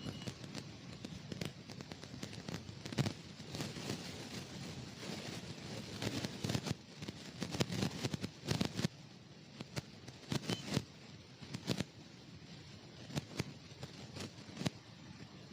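Irregular crackles and rustles from a lapel microphone inside a motorcycle helmet during a ride, over a steady low rumble of wind and road noise.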